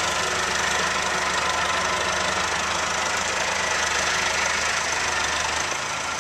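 Tractor engine running steadily as a round hay bale is hauled off, its low hum easing a little near the end.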